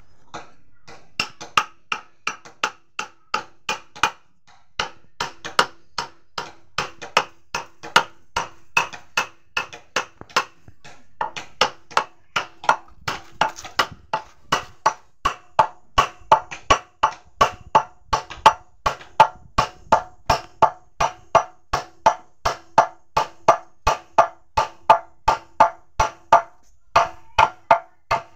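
Hammer blows on the wooden handle of a dao, driving the handle down onto the blade's tang: sharp knocks at about two to three a second, pausing briefly a few times, with a faint ring between blows.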